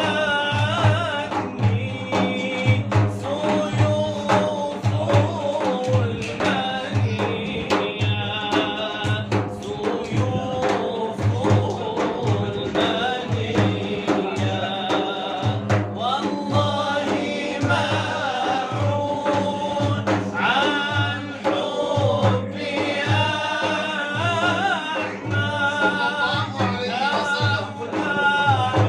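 Male voices singing an Arabic devotional inshad, a melismatic line over a steady low drum beat of about one and a half strokes a second.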